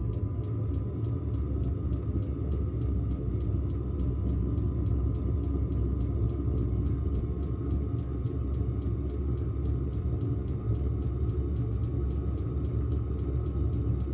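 Diesel heater running after it fires up: a steady combustion rumble with a fan whine, and the fuel pump ticking evenly underneath.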